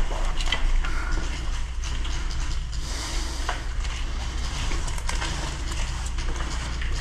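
Handling noise and movement of a body-worn camera over a steady low rumble, with scattered sharp clicks and knocks.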